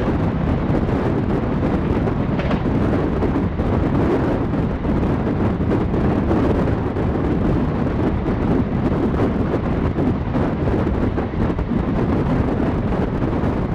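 Steady rumble of a passenger train running at speed, heard from an open coach door, with wind rushing over the microphone.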